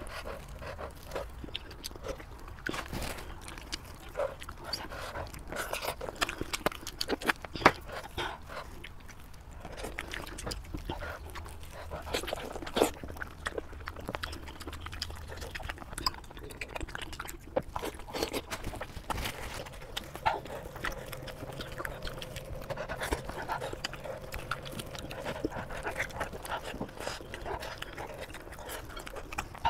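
Close-miked eating sounds: gloved hands tearing apart a braised sheep's head in chili oil, with wet squelches, sticky smacks and chewing clicks coming irregularly.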